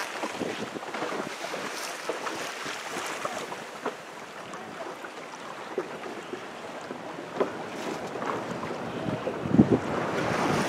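Wind buffeting the microphone and water splashing and rushing along the hull of a sailboat under way, growing louder with a few stronger splashes near the end.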